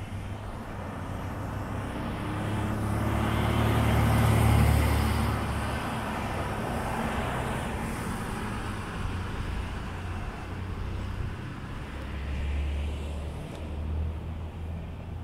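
A car driving past on the street, rising to its loudest about four and a half seconds in and then fading away, with the low rumble of another vehicle going by near the end.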